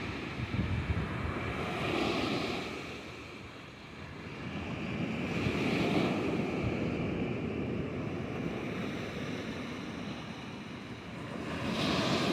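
Surf breaking and washing up on a sandy beach, swelling and fading in slow surges about every four seconds, with the loudest wash near the end.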